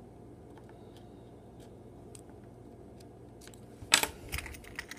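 Faint small clicks of a blade working at the tape on a plastic coin tube of silver eagles. About four seconds in, a sharp clack and then a short run of clicks and rattles as the tube and blade are handled on a wooden table.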